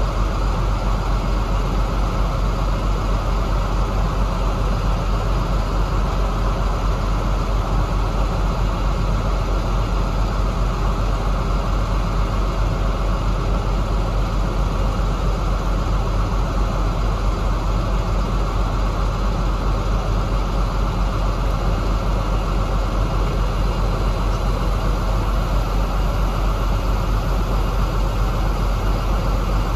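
Kamaz truck's diesel engine running steadily at one constant speed, a low, even drone with no change in pitch or load.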